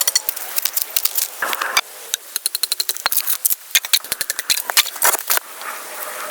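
A dense run of sharp, irregular clicks and snaps mixed with short scrapes, the sound of hand work with tools or building material.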